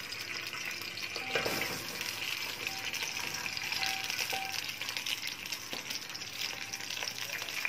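Sliced onion rings sizzling as they fry in hot oil in an aluminium pot. After a short knock about a second and a half in, the sizzle grows louder and stays steady as the onions go into the oil.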